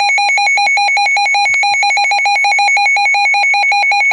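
Midland WR-100 weather radio sounding its alert-test alarm: a loud electronic tone pulsing rapidly and evenly, several beeps a second.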